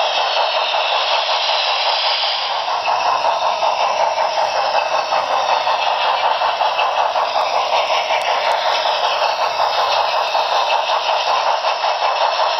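HO scale model steam locomotive's Paragon3 onboard sound system playing a fast, steady run of steam chuffs through its small speaker as the model runs, thin with little bass, along with the clatter of its wheels on the track.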